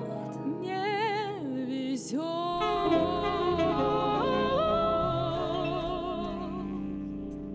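Four women's voices in close harmony with a saxophone, closing a pop song: a short phrase sung with vibrato, then a long held chord that steps up once and fades out near the end.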